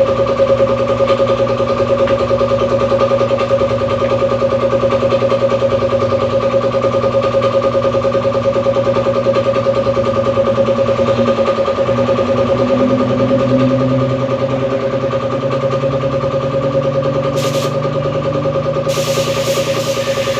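Electric motor of paint-spraying equipment running steadily with a constant high hum, its pitch dipping slightly about two-thirds of the way through, while clear top-coat varnish is sprayed; a hiss joins near the end.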